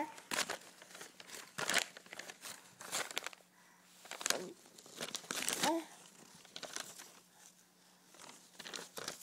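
Glossy magazine pages crinkling and rustling in irregular bursts as a baby handles and mouths them.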